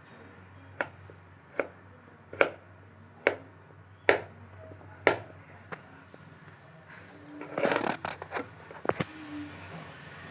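Kitchen knife chopping boiled potato on a plastic cutting board: sharp taps of the blade striking the board, about one every second, then a short busier spell of quicker knocks about three quarters of the way through.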